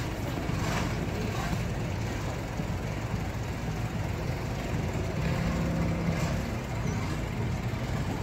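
A boat engine running steadily with a low drone. A slightly stronger hum comes through about five to six seconds in.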